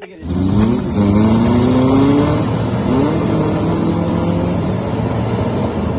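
Off-road vehicle engine revving under load, its pitch climbing twice and then holding steady.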